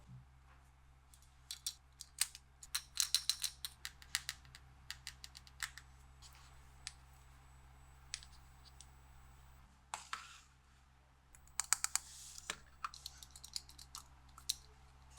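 Light clicks and taps of small toy kitchen pieces being handled and set down, coming in quick irregular clusters, with a couple of short rustles in the second half.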